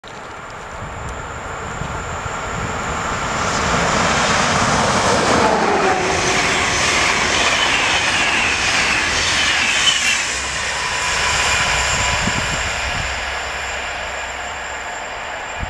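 Intercity passenger train passing at speed: the rail noise builds as it approaches, a whine drops in pitch as the front passes about five seconds in, then the coaches rush by and the sound slowly fades as the train recedes.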